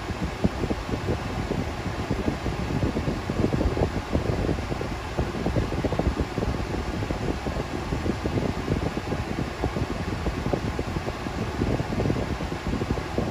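Steady blowing of a car's air-conditioning fan inside the cabin, with a low rumble under it.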